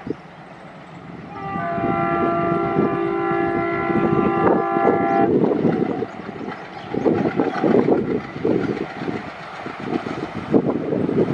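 Approaching diesel locomotive sounding one long two-note horn blast of about four seconds, starting a second or so in. After the horn come its engine and the wheels clattering over the rails, growing louder as it nears.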